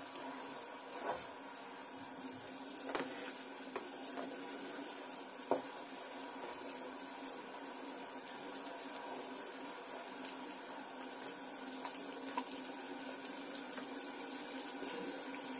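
A ladle stirring simmering kadhi, a thick gram-flour and buttermilk curry, in a metal pan. The liquid sloshes softly over a steady hiss, and the ladle knocks lightly against the pan a few times.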